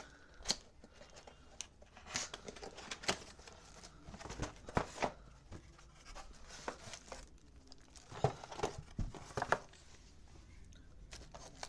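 A cardboard box being opened and a keyboard in clear plastic wrap handled and slid out, with the film crinkling and the cardboard scraping in irregular bursts and sharp clicks.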